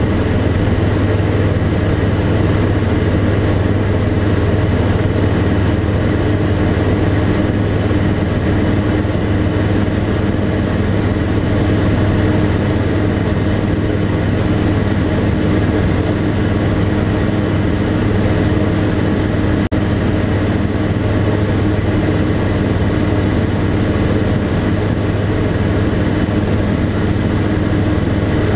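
Tecnam P92 Echo Super's piston engine and propeller running steadily at cruise power, heard from inside the cockpit.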